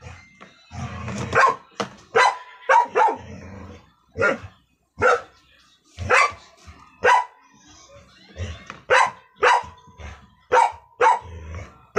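A dog barking repeatedly, about a dozen short barks roughly one a second.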